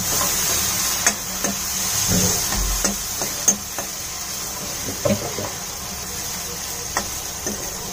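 Chopped onion frying in hot butter in a steel kadhai: a steady sizzle, with a steel ladle clinking and scraping against the pan every second or so as it is stirred.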